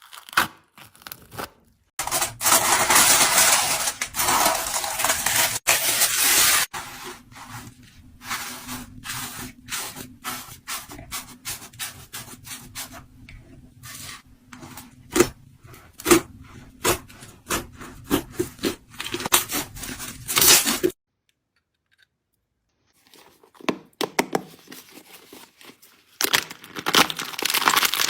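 Slime being pressed, stretched and poked by hand: dense crinkling and crunching in stretches, with many sharp crackling pops in between. It stops for about two seconds, then starts again.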